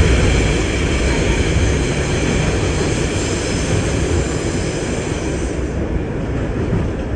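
Subway train running on the track: a loud, steady rumble with a high whine over it that stops about five and a half seconds in.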